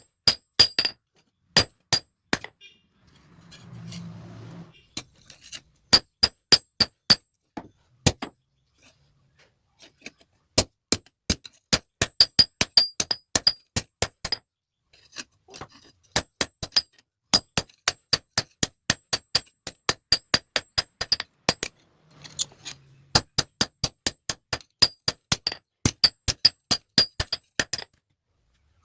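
Hand hammer striking metal on an anvil in runs of sharp, ringing blows, a few a second, with short pauses between runs, as a blacksmith forges a pair of tongs.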